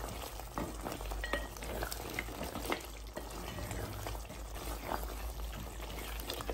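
Mutton bubbling in its own released juices in a metal pot while a spatula stirs it, with scattered scrapes and clicks of the spatula against the pot.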